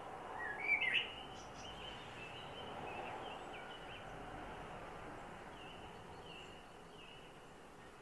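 Male Eurasian blackbird singing: one loud warbled phrase rising into a high twitter about half a second in, followed by faint short high notes over steady background noise.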